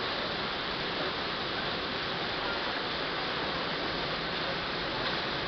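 Steady rush and splash of water pouring from the spouts and spray jets of a water-park play structure into a shallow pool.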